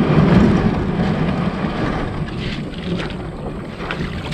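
Plastic kayak hull dragged over a gravel riverbank, making a steady scraping rasp over the stones, with a few sharper crunches in the second half.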